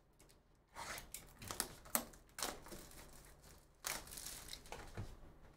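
Plastic shrink wrap being torn and peeled off a cardboard trading-card hobby box, crinkling in a series of irregular bursts.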